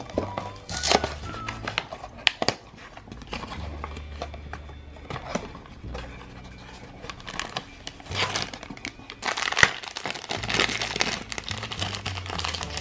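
Cardboard blind box being torn open by hand, then the crinkly black foil bag inside rustled and torn open, with a few sharp snaps, over background music.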